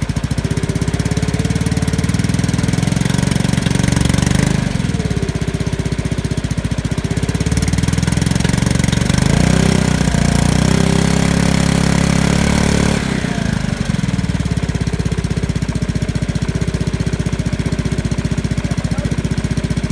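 Honda Helix CN250 scooter's single-cylinder four-stroke engine running through a prototype aftermarket silencer fitted with a dB-killer insert. It idles, is held at higher revs from about four and a half seconds in until about thirteen seconds, then drops back to idle.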